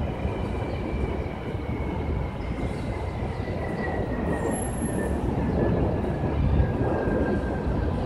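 Steady low rumble from a large vehicle, with a thin high whine that slowly falls in pitch; the rumble swells slightly a little past the middle.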